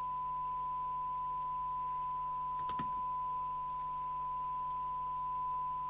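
A steady single-pitch test tone from a Binatone Longranger 6 CB radio receiving a tone-modulated test signal from a signal generator, as used for a SINAD sensitivity measurement, over a faint low hum. A brief click a little under three seconds in.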